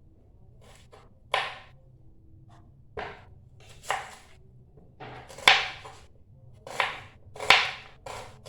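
Knife slicing an onion thin on a cutting board: a series of sharp cuts at uneven spacing, roughly one a second.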